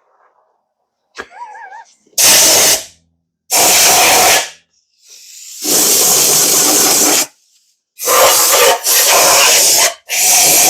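Repeated short blasts of compressed air from an air blow gun, about six bursts of hiss with brief gaps, blowing water out of the engine after head-gasket removal.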